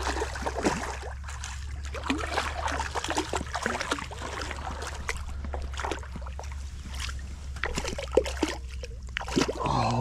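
Hooked smallmouth bass thrashing and splashing at the water's surface as it is played in to the bank: irregular splashes and sloshing throughout, with one sharp splash about eight seconds in.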